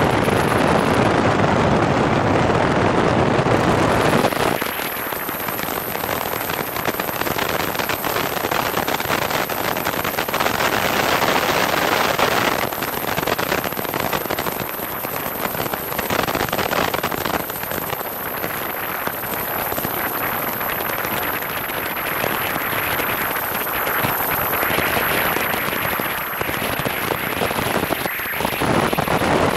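Wind rushing over a camera mounted under the wing of a single-engine Piper Cherokee, with the airplane's engine and rolling noise underneath. The first four seconds carry a heavy low buffeting, after which it settles into a steadier, crackly rush that grows louder again near the end.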